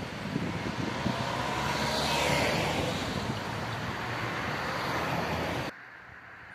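A van and then a car drive past close by, engine and tyre noise swelling as each goes by, loudest about two seconds in. The sound cuts off abruptly near the end, leaving a quiet steady background.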